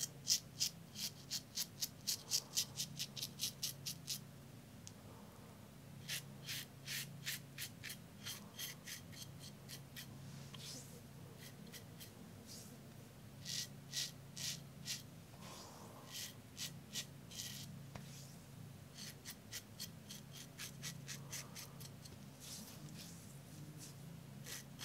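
Tatara Masamune safety razor with an Iridium blade scraping through stubble in runs of short, quick strokes, about four a second, with brief pauses between runs. This is an against-the-grain pass with touch-ups.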